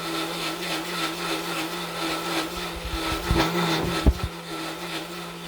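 Breville Bluicer blender running steadily on speed 4, blending thick barbecue sauce: a steady motor hum under a noisy churning wash, with a couple of low thumps about three and four seconds in.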